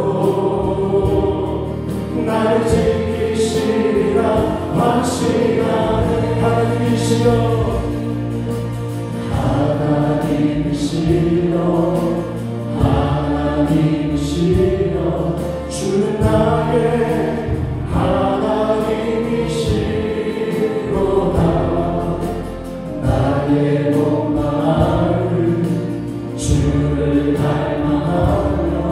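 Church worship music: several voices singing a hymn together over keyboards, including a Yamaha Montage 8 synthesizer, with drums and bass guitar and occasional cymbal hits.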